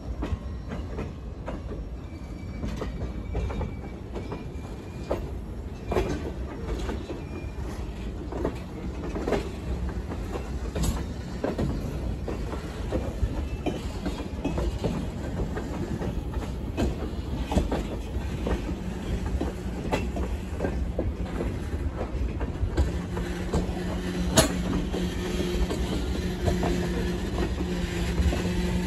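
CSX freight train moving slowly past, a string of loaded open-top hopper cars rolling by: wheels clicking and knocking over rail joints over a steady rumble, with a few faint, brief wheel squeals. A low steady drone comes in during the last third.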